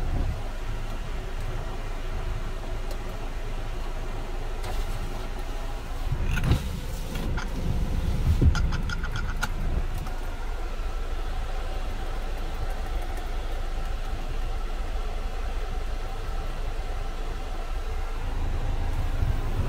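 2008 Kia Carnival's 2.9-litre turbo-diesel engine idling steadily, heard from inside the cabin as a low rumble. A few knocks and a short run of rapid clicks come about six to nine seconds in.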